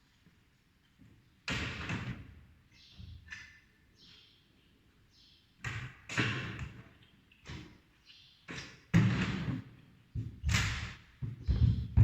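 A series of irregular knocks and thumps, about eight, as tools and metal parts are handled during a pump repair. Some of the sharper knocks ring briefly.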